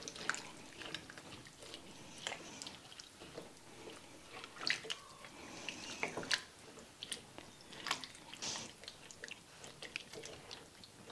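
Silicone spatula stirring chopped vegetables, diced tomatoes and broth in a soup pot: faint, irregular wet squishing and scraping with light knocks.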